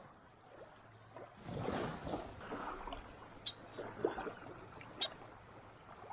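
Small waves washing up on a sandy beach, one swelling wash of water about a second and a half in, with a couple of sharp clicks later on.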